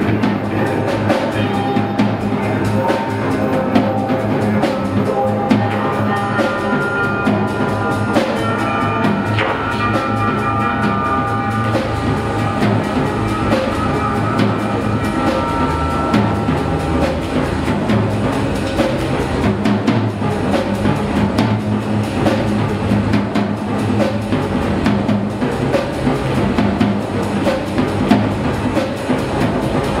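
Live rock band playing an instrumental improvisation: a drum kit keeps a steady beat under electric guitars. Held high notes ring out from about six to sixteen seconds in.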